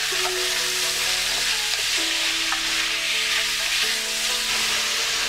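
Pieces of raw chicken sizzling in a hot nonstick frying pan while being stirred with a wooden spoon: a steady frying hiss.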